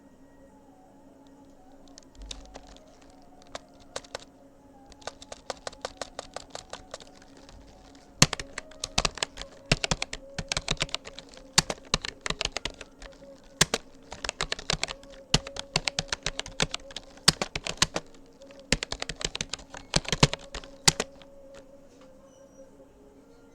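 Typing on a Rapoo computer keyboard: a few scattered keystrokes at first, then a long run of rapid, steady key clicks that stops shortly before the end.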